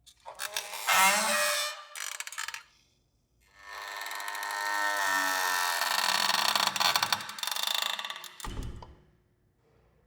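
Creaky door swinging on its hinges: a creak of a couple of seconds, then after a short pause a longer creak lasting about five seconds whose pitch falls partway through, with a low knock near the end.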